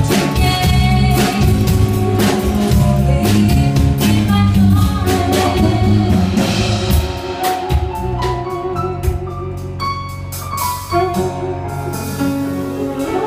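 Live band playing the closing section of a song: drum kit, bass, keyboard and alto saxophone, with a woman singing into a microphone. The drumming is busy at first and thins out about halfway through.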